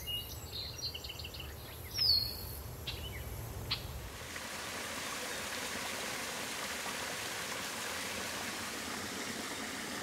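Birds call over quiet outdoor ambience: a few short chirps and one downward whistle. About four seconds in, the steady rush of a small waterfall pouring down a rock face takes over.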